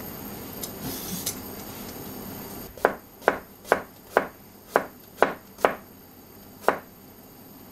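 Japanese vegetable knife slicing a cucumber on a cutting board: eight crisp knocks of the blade meeting the board, about two a second, starting about three seconds in, with the last after a short pause.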